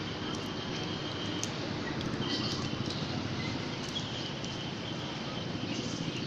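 Steady low rumble of outdoor background noise, with a faint thin high tone that comes and goes and a few light ticks.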